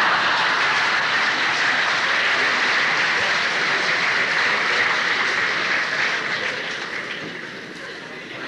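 Audience applauding, a loud, steady wave of clapping that tapers off near the end.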